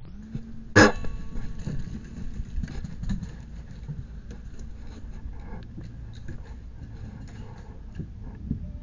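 Handling and movement noise on a gun-mounted camera. There is a sharp loud knock about a second in, then steady rustling rumble with scattered small clicks.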